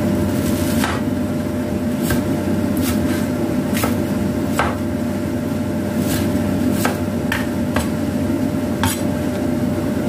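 Kitchen cleaver chopping shallot on a wooden cutting board: a dozen or so sharp, irregular knocks, about one a second, over a steady low background hum.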